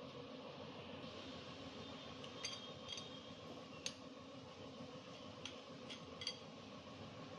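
About half a dozen light metallic clinks, at irregular times, of tools and engine parts being handled in a workshop. Under them runs a steady low hum.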